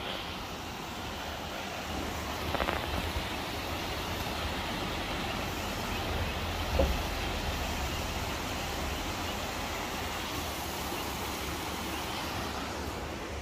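Steady rush of water spilling down a reservoir's stepped stone overflow spillway, with a low rumble underneath.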